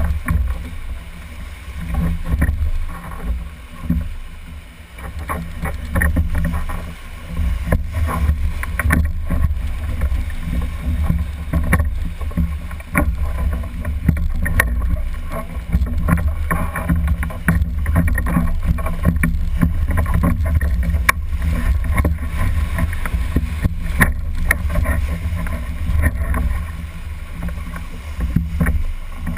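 Whitewater of a shallow, rocky rapid rushing around an oar-rowed raft, with a heavy low rumble that swells and eases. Frequent sharp knocks and clicks run through it.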